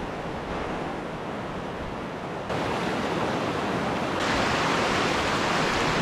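Fast, shallow river rushing over rocks, a steady rush of water that changes abruptly in level and brightness about two and a half and four seconds in.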